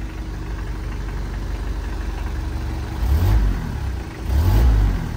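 1997 Mitsubishi L300 pickup's engine idling, then revved twice in quick succession about three and four seconds in.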